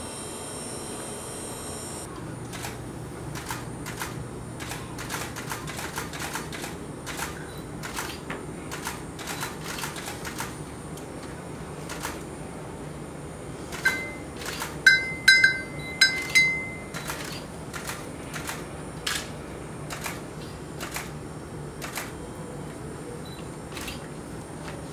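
Electric hair clippers buzzing, switched off about two seconds in. After that come scissors snipping hair in irregular sharp clicks, one or two a second, with a cluster of louder, ringing metallic snips about halfway through.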